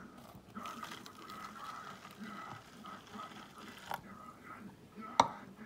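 Water poured from a jug onto jelly crystals in a plastic tub: a splashing pour that starts about half a second in and lasts about three seconds. A single sharp knock comes near the end.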